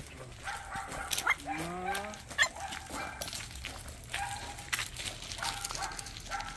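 A young puppy whining and yipping in a few short rising calls, with scattered crunches of footsteps on gravel.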